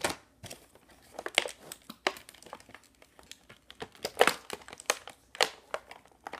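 Plastic packaging and a cardboard box crinkling and rustling in irregular crackles as hands unpack a toy train set and pull out its parts.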